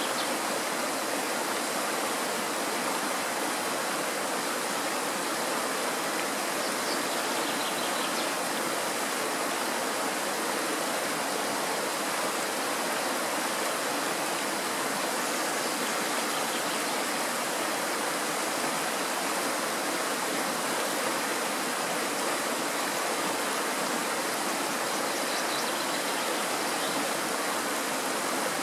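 Shallow mountain stream rushing steadily over a stony bed and a small riffle, an even, unbroken water noise.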